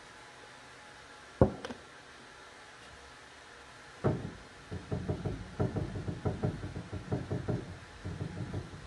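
Knocking: one sharp knock about a second and a half in, then from about four seconds in a quick, uneven run of knocks, several a second.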